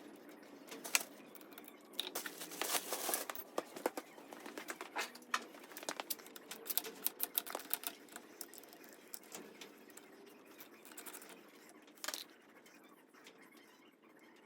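Hand work on small motorcycle parts: a run of light clicks, taps and scraping, busiest in the first half, with one sharper knock near the end.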